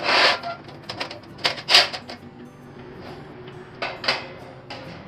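Wire-mesh grill grate being slid into and set down on a small portable metal charcoal barbecue: metal scraping and clattering in a few short bursts, the loudest two at the very start and about a second and a half in.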